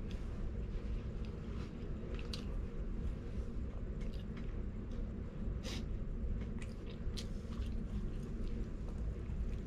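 Close-miked chewing of a mouthful of fried chicken and fries, with a few sharp crisp clicks scattered through it over a steady low hum.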